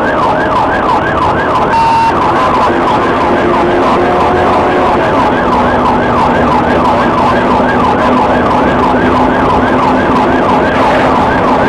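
Police car siren on fast yelp: quick rising-and-falling sweeps, about three a second, over steady engine and road noise from the cruiser at speed.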